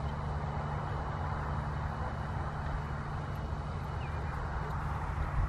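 A steady low engine hum, like a vehicle or machine running nearby, over an even haze of outdoor noise. A short faint high chirp comes about four seconds in.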